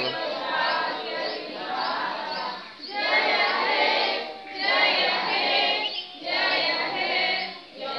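A group of voices singing together in unison, phrase after phrase with short breaks between.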